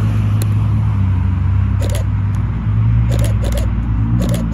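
Ferrari sports car's engine running at low revs as it creeps out of a forecourt, a steady low drone, with a few short sharp clicks over it.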